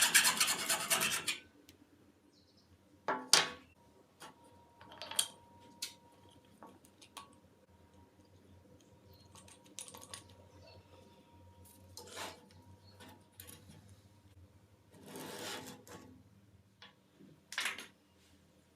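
Rapid back-and-forth file strokes that stop about a second in, followed by scattered light clicks, clinks and short scrapes of small metal tools and parts being handled on a workbench.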